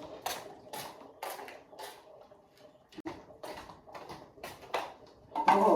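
Knife chopping vegetables: a quick run of sharp cuts, about two to three a second, with a short vocal sound near the end.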